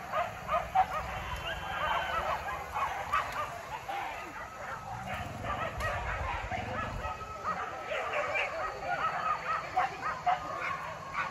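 A pack of hunting dogs yelping and barking, with many short, high yelps overlapping all the way through.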